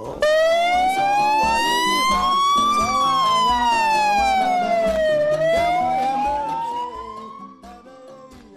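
Police pickup truck's siren on a slow wail: the pitch rises for about two and a half seconds, falls for about as long, then rises again. It fades near the end as the truck pulls away.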